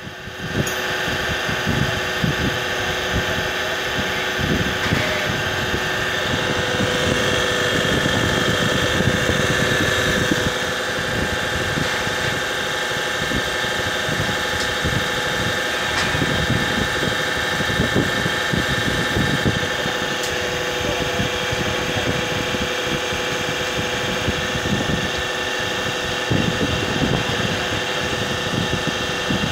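A steady machine hum with a few held tones, like a motor running, under wind buffeting the microphone in irregular low gusts.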